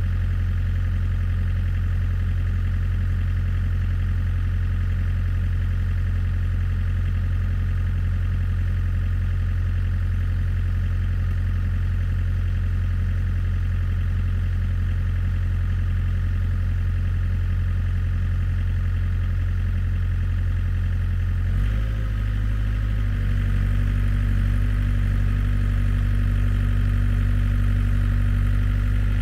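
Excavator's diesel engine running steadily at idle; about twenty seconds in the engine note steps up and holds at a higher, slightly louder speed.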